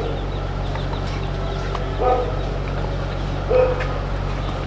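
Chickens clucking: two short calls, about two seconds and three and a half seconds in, over a steady low hum.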